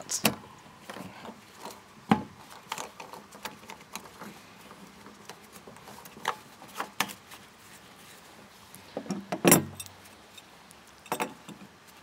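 Plastic pipe fitting clicking, knocking and scraping as it is pushed and twisted onto the tank connector of a plastic water barrel, in scattered small knocks with the loudest about nine and a half seconds in.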